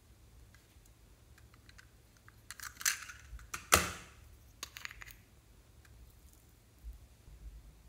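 Close-up handling sounds of small plastic and metal items: rustling and light clicks, with one sharp click a little before halfway as the lid comes off a small metal tin of glitter, then a few lighter ticks.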